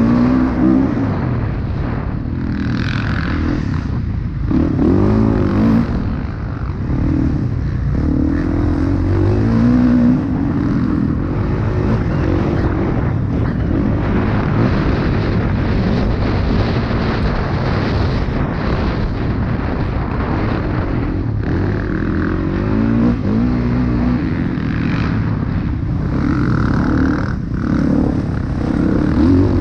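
Motocross bike engine at race pace, revving up and falling off again and again as the rider accelerates, shifts and brakes. Wind buffets the on-board microphone.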